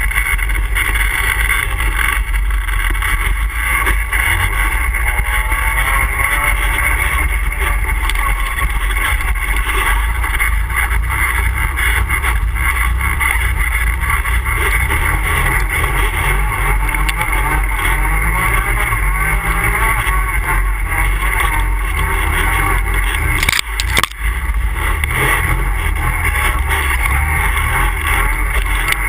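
ATV engine running under way, its pitch rising and falling with the throttle, with wind rush on the microphone. A short knock and a brief dip about 24 seconds in.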